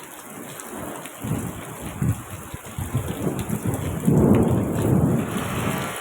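Thunder rumbling low and unevenly over steady rain, swelling to its loudest about two-thirds of the way through.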